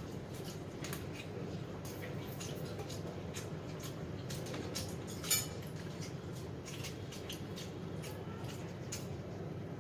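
Eating at a table: scattered small clicks and clinks of cutlery and dishes over a steady low background hum, with one sharper clink about five seconds in.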